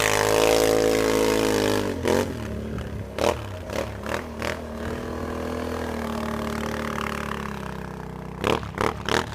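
ATV engine revving high, then dropping in pitch about two seconds in and running lower and steadier, easing off toward the end. Sharp knocks and clatters break in several times, with a quick run of them near the end.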